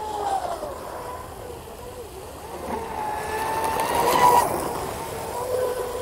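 High-pitched electric whine of an RC hydroplane's 2000 kV brushless motor running on the water. It grows louder and climbs a little in pitch about four seconds in, with a brief rush of hiss, then eases.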